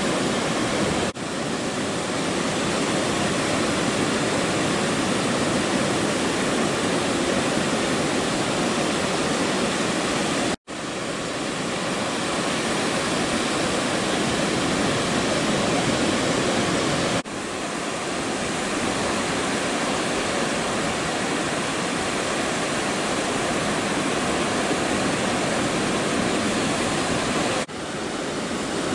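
Steady rushing of ocean surf breaking on a sandy beach, with short drops in the sound at edits about a second in, around the middle (a brief silence), and twice more later.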